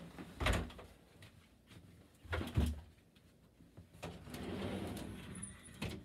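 Two heavy thumps, then bifold closet doors rolling along their track and clicking shut.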